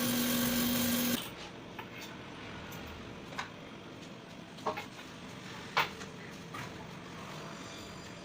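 CNC wire-cut EDM machine running with a steady hum that stops abruptly about a second in, followed by a few faint clicks and knocks.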